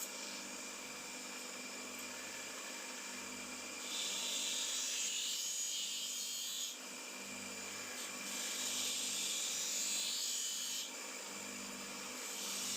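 Abrasive work on the knife's metal: long stretches of rubbing hiss over a steady low hum, starting about four seconds in and again near the end.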